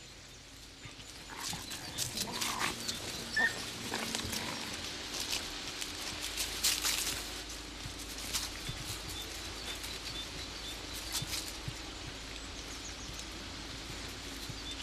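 Iberian wolves growling and snarling as they feed on a sheep carcass, with sharp crackling and tearing noises of flesh and bone throughout.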